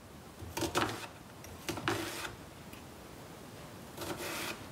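Kitchen knife slicing through an onion onto a wooden chopping board: three cuts, the later two longer drawn strokes.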